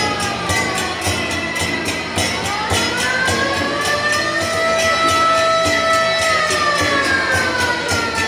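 Air-raid siren wailing, its pitch sliding down at first, rising again about two seconds in, holding, then falling near the end, over a steady beat of procession percussion.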